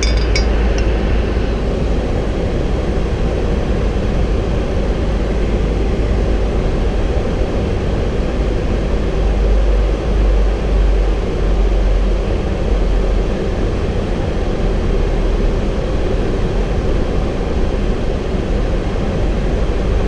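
Steady flight-deck noise inside a Boeing 737-800 cockpit in flight: an even rush of air with a deep low rumble underneath.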